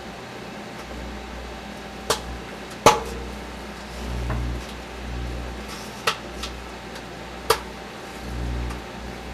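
Microwave oven running with its low hum while a Sony headset radio inside it crackles with sharp snaps of electrical arcing, four of them at uneven gaps, the loudest about three seconds in. The arcing comes shortly before the radio bursts into flame.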